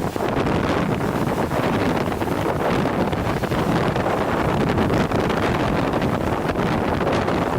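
Strong wind buffeting the microphone over a continuous rush of wind-driven lake waves breaking against a breakwater.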